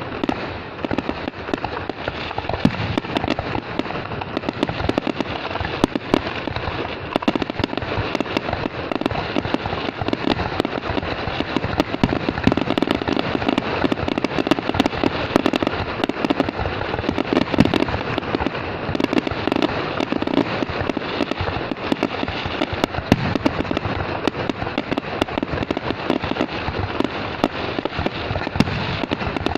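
Fireworks going off in a dense, continuous barrage of many overlapping bangs and crackles with no pause.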